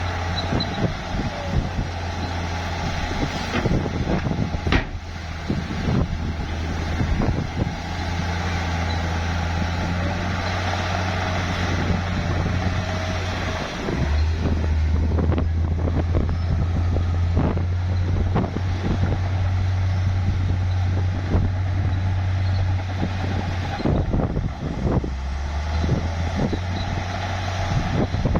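Bulldozer's diesel engine running under load, with repeated clanks and knocks from the working machine. The engine note shifts about halfway through and again near the end.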